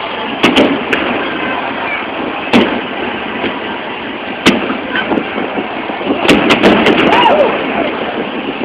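Aerial fireworks shells bursting, heard as sharp bangs at irregular intervals, with a quick run of several bangs about two-thirds of the way through. Under the bangs runs a steady background rush.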